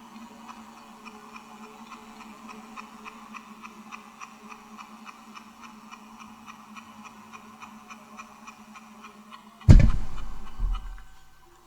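Old, damaged magnetic tape playing back: a steady hum with a fast, regular ticking, then near the end a sudden loud burst of distorted low noise that fades away over about two seconds.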